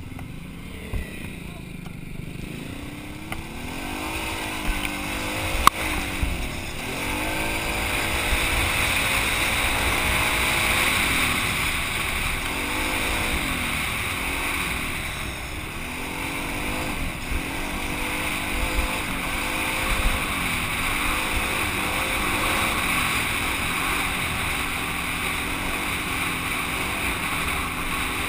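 Quad bike (ATV) engine heard from on board while riding a dirt trail, its pitch rising and falling over and over as the rider accelerates and eases off, with wind rushing over the microphone. It is quieter for the first few seconds, and there is one sharp knock about six seconds in.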